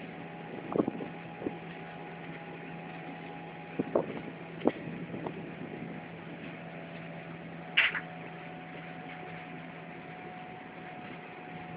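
Train running along the track: a steady running noise and hum, with a few short sharp knocks and clacks scattered through, and a brief higher-pitched sound about eight seconds in.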